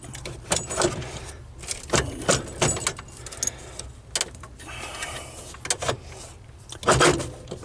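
Irregular clicks, taps and rustling of hands working a control cable and its rubber grommet through the firewall under a Jeep's dashboard, with a louder rustle about seven seconds in.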